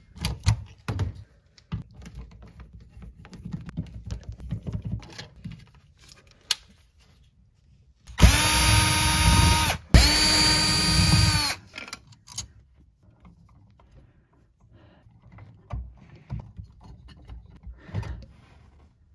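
Power drill/driver unscrewing a wall outlet's mounting screws: two short runs of a steady motor whine, back to back about halfway through. Before and after come light clicks and handling noise from working the outlet out of its box.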